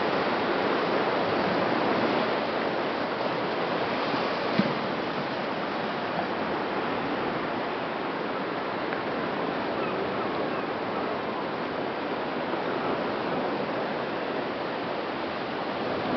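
Sea surf breaking against the base of the cliffs, a steady rushing wash of water, with one brief tap about four and a half seconds in.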